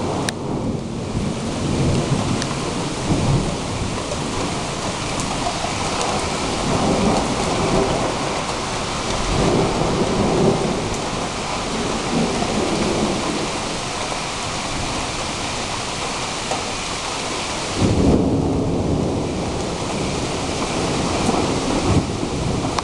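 Thunderstorm: steady rain with rolling thunder rumbling low and swelling several times, and a fresh rumble breaking in abruptly near the end.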